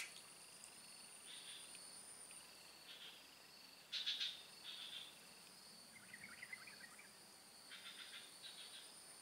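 Faint insect chorus: a steady high-pitched insect whine with repeated short, buzzy cricket-like chirps, and a brief chattering trill about six seconds in. A short splash sounds at the very start as the baited line drops into the water.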